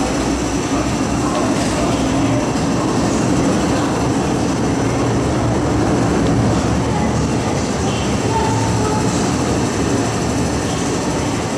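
MTR M-Train electric multiple unit running through a station platform without stopping, out of service, behind platform screen doors: a steady rumble of wheels and traction motors that holds at one level.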